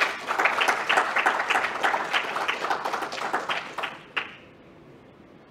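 Audience applause at the end of a talk, the separate claps distinct, dying away about four seconds in.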